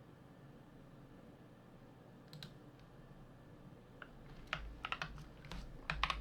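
Mechanical keyboard with lubed BobaU4T tactile switches on an aluminium plate: a few separate keystrokes, then a quick run of presses over the last two seconds.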